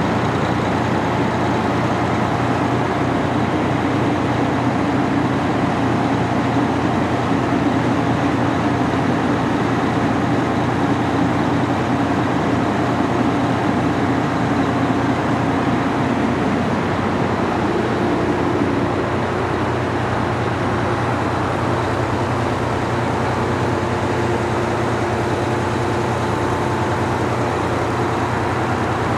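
Diesel engines of parked fire trucks idling, a steady low rumble with a constant hum; a droning note in it fades out a little past halfway.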